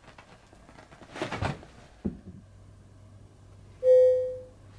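A brief rustle and soft thump of a cat playing with a feather toy on a bedspread, then a single bell-like ding that starts sharply near the end and rings away within about a second; the ding is the loudest sound.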